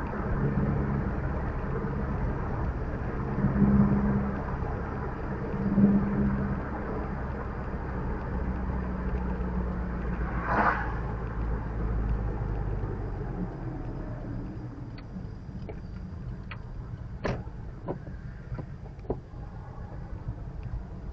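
Car driving, with steady road and engine rumble heard from inside the cabin. A few light clicks and knocks come in the second half as the rumble eases off.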